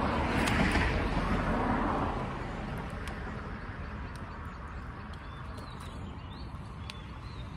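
Outdoor background noise: a steady low rumble, with a louder rustling hiss over the first two seconds and a few faint high chirps.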